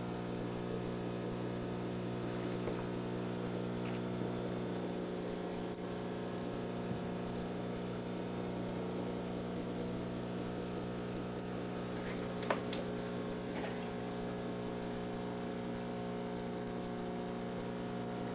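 Steady hum of a running aquarium pump with a light patter of water. One sharp click about twelve seconds in.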